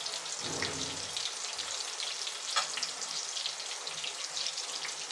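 Potato strips for French fries deep-frying in hot oil in an aluminium kadai: a steady sizzle with dense, fine crackling.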